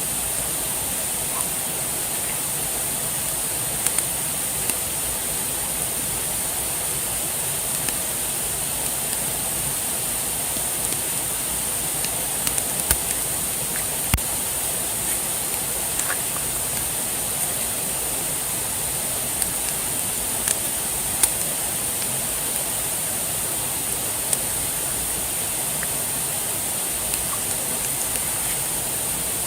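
Steady rush of flowing water, with a few short sharp pops scattered through it.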